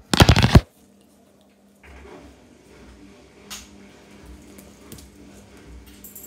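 A sharp click and then a loud clatter lasting about half a second right at the start. After that, faint handling rustles and a few light clicks over a low steady hum.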